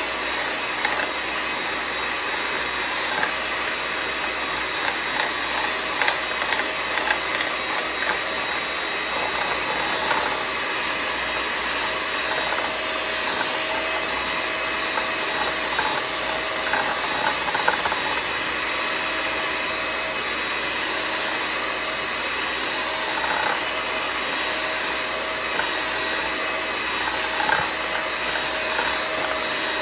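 Electric hand mixer running steadily, its beaters whipping instant coffee, sugar and hot water into foam, with light ticks and scrapes of the beaters against the bowl.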